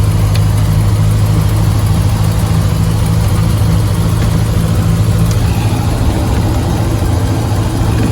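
Ford Model A's four-cylinder engine running steadily while the car is driven, heard from on board, with an even hiss over it.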